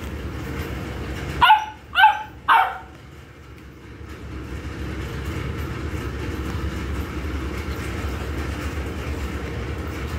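Saint Bernard puppy barking three times in quick succession, about a second and a half in, followed by a steady low hum.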